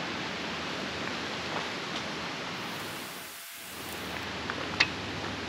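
A steady rushing hiss, like running water or wind, that dips briefly a little past halfway, with a few light clicks and one sharper click near the end.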